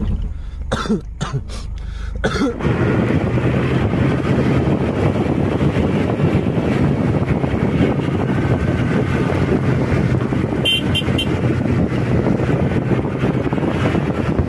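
Steady engine and road noise of a moving vehicle with a low hum, starting abruptly about two and a half seconds in after a few knocks and cutting off just at the end.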